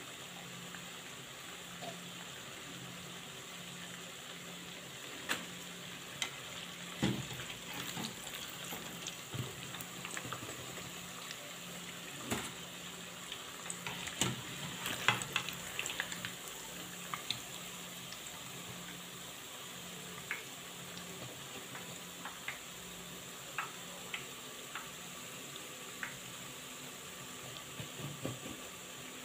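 Half cake (kangumu) pieces deep-frying in hot oil: a steady sizzle with scattered sharp pops and clicks, busiest in the middle.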